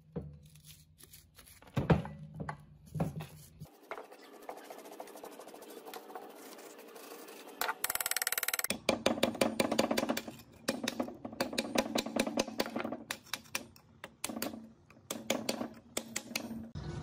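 A few sharp knocks as the rusty gearbox is handled. Then, after a short burst of noise, a metal scraper rasps and clicks in rapid strokes as it scrapes thick rust and scale off the gearbox casing.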